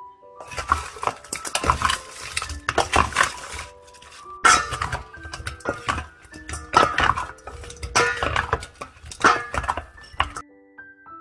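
A wooden spatula stirring and tossing sauce-coated fried chicken wings in a stainless steel mixing bowl, knocking and scraping against the metal in several spells of stirring. It starts about half a second in and stops about a second before the end. Soft piano music plays underneath.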